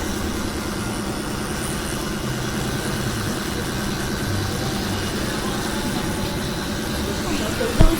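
Motor vehicle engine idling with a steady low rumble, and a single thump near the end.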